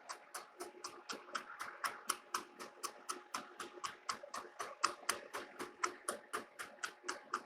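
Metal lathe taking a roughing cut through the weld buildup on a steel trunnion wheel: a rapid, even ticking, about five clicks a second, over a faint steady hum.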